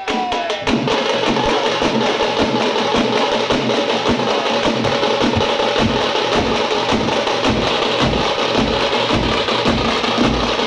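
A street drum troupe of many stick-beaten drums playing a fast, dense rhythm together. Deep bass-drum strokes join in about five and a half seconds in, roughly one or two a second.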